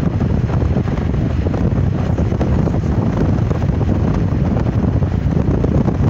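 Wind buffeting the microphone of a moving car, mixed with road noise: a steady, rumbling noise heavy in the low end.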